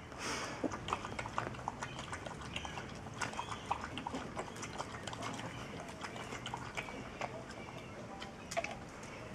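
Laekenois (Belgian Shepherd) puppies and an adult dog at play over a soft toy: a run of small scuffling, mouthing and clicking noises, with a short higher-pitched sound near the end.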